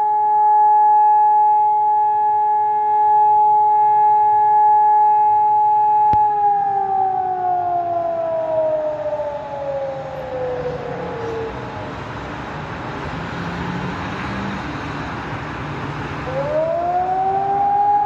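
Civil-defence-style siren holding a steady wail, then winding down in pitch about six seconds in until it fades into a rushing noise, and winding back up to its steady tone near the end.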